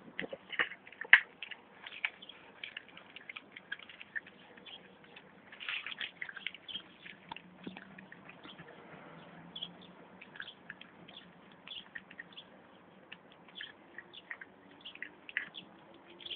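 American Staffordshire Terrier puppy moving about: irregular light clicks and taps, heaviest about six seconds in.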